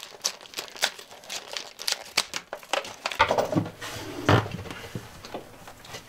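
Stiff plastic blister packaging crinkling and crackling as it is cut and pried open with snips, a quick run of sharp clicks and crackles.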